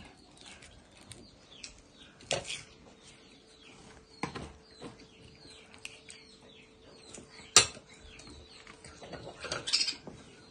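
Serving spoon and knife clinking against a metal baking tray and china plates, with a few separate clinks; the sharpest and loudest comes about seven and a half seconds in. Small birds chirp faintly throughout.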